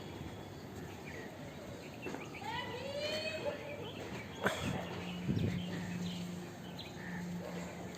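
Outdoor ambience picked up by a smartphone's built-in microphone, with a run of bird calls a few seconds in. Two knocks follow, then a steady low hum sets in about halfway through.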